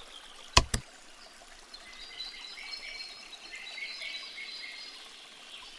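Two sharp clicks close together, about half a second in, like a button being clicked. Then faint, repeated high-pitched chirping calls over a soft hiss.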